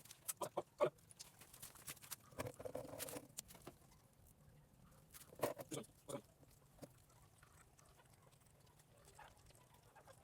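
Newborn puppies squeaking and whimpering: a few short squeaks at the start, a longer cry about two and a half seconds in, and a few more squeaks around six seconds, then only faint sounds.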